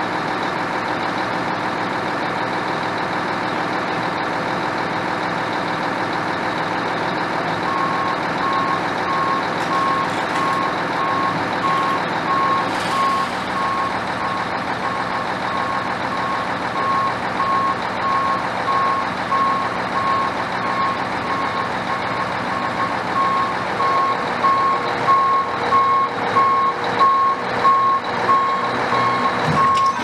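Diesel engine of a mobile crane running steadily, with an electronic warning beeper starting about eight seconds in and beeping evenly from then on. The engine grows louder and more uneven over the last few seconds.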